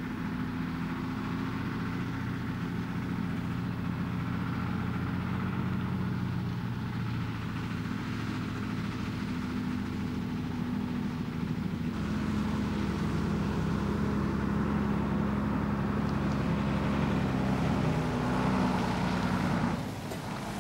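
Truck engine running steadily, growing a little louder about halfway through.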